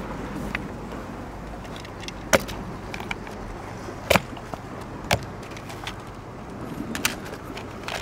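Several sharp, short clicks or knocks, one every second or two, over a low steady background noise.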